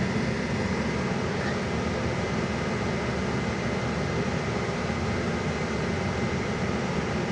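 A steady whirring hiss with a faint high steady tone, the sound of a fan running continuously, such as a workshop heater's fan.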